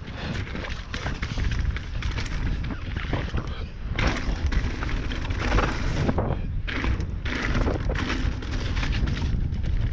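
Mountain bike ridden over a rough dirt trail: wind buffets the microphone in a heavy rumble, with frequent knocks and rattles from the bike over the ground.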